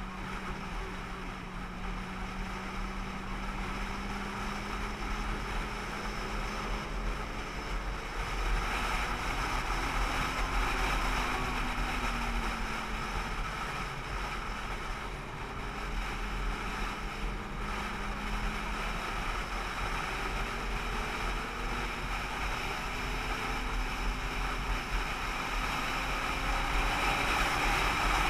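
Vehicle engine running while under way, its pitch drifting gently up and down with speed, over steady wind and road noise.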